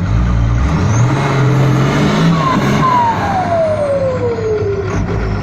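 Diesel dump truck engine revving with a turbocharger howl; the turbo whistle falls steadily in pitch over about two seconds as the revs come down in the second half.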